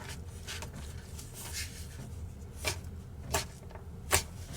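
Plastic salad-kit packets and a container being handled: soft rustling with a few sharp clicks, three of them clear about two and a half, three and a third and four seconds in, over a steady low hum.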